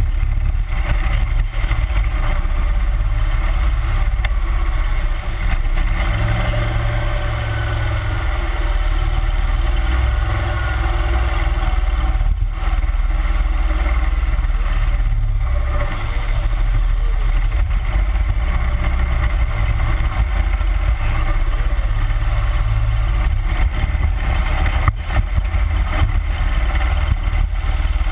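31 hp Mud Buddy Hyperdrive surface-drive mud motor running steadily, pushing an aluminium boat under way, heard close up from on board with a deep, continuous hum.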